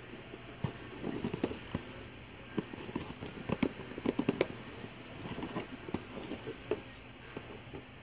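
Cardboard box and packaging being handled while it is opened: an irregular run of small taps, clicks and rustles, busiest about halfway through.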